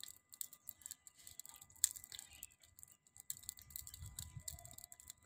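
Open wood fire crackling with scattered small sharp clicks and one louder pop about two seconds in; a brief low rumble comes near four seconds.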